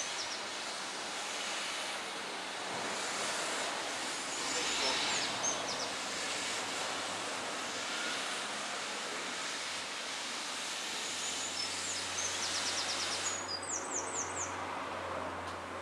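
Steady outdoor background hiss with small birds chirping in short quick runs three times. A low hum comes in about eleven seconds in, and near the end the upper part of the hiss drops away suddenly.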